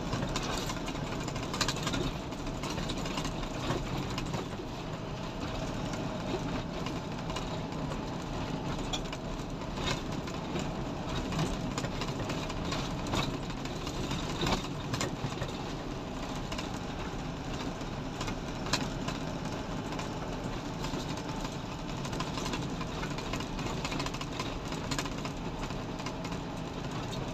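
Cargo truck's engine running steadily while driving on a paved road, with frequent short clicks and rattles throughout.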